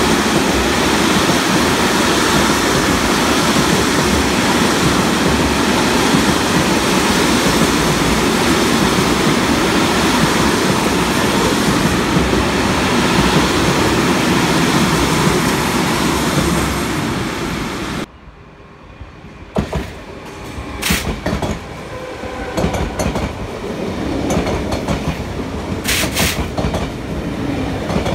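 Freight hopper wagons rolling steadily past on the track, a loud continuous rumble and clatter of wheels. After a cut about eighteen seconds in, a quieter double-deck regional electric train passes, with irregular wheel clicks over rail joints and a couple of brief high squeaks.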